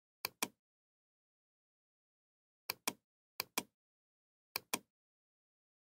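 Computer mouse clicking: four pairs of short, sharp clicks, each pair a fifth of a second apart, against total silence.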